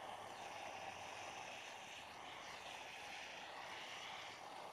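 Small handheld jewelry torch flame burning with a steady hiss while it heats brass settings for soldering.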